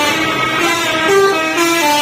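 Telolet horn: a multi-tone bus horn playing a quick tune of short held notes that step up and down several times a second.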